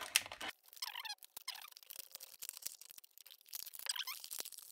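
Clear plastic blister packaging being prised apart and handled: crackling of stiff plastic, with many small sharp clicks and two short bouts of squeaking.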